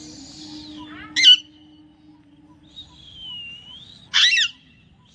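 Alexandrine parakeet calling: two short, loud, harsh squawks about three seconds apart, with softer whistled notes that dip and rise between them.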